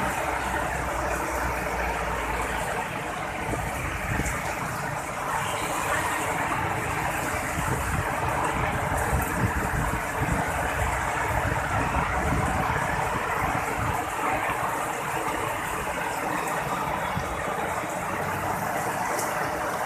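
Heavy rain pouring steadily in a downpour, with strong wind gusting on the microphone.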